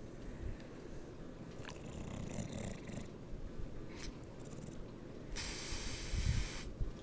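Bulldog snoring in its sleep, a low rattling rumble, with one louder, breathier snore lasting about a second near the end.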